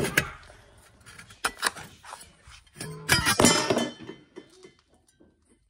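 Clinks and thunks of a stainless steel jet-ski impeller and wear ring being handled and set down on a plastic tray, a few separate knocks with the loudest, slightly ringing cluster about three seconds in.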